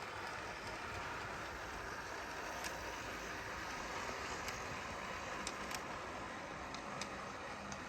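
N gauge model train running on the layout: a steady hum and rumble, with a few scattered sharp clicks.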